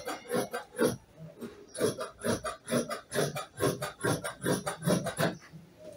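Dressmaker's shears snipping through fabric, a quick even run of cuts about three to four a second, with a short pause about a second in; the snipping stops near the end.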